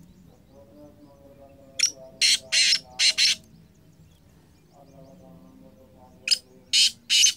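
Black francolin calling: one full call of five harsh, rasping notes, and about three seconds later the next call begins.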